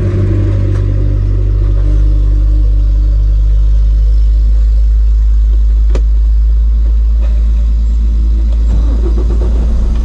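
Semi-truck diesel engine running, a steady low drone heard from inside the cab, with a single sharp click about six seconds in.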